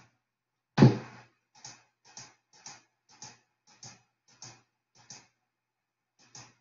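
A sharp knock about a second in, followed by a run of light, evenly spaced clicks, roughly two a second.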